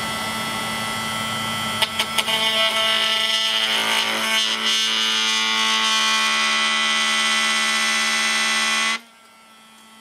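Makita 18V cordless oscillating multi-tool running with its blade cutting into a plastic sheet: a steady, high buzz with a few sharp clicks about two seconds in. The cut is hot enough to melt the plastic. The buzz cuts off suddenly near the end as the tool stops.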